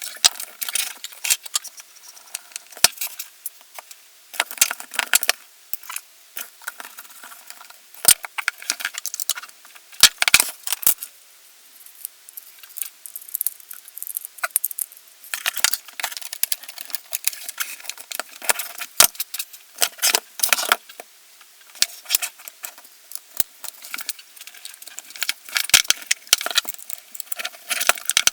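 Small metal and plastic parts of an airsoft MP5 being handled during reassembly: irregular clicks, taps and short rattling clusters.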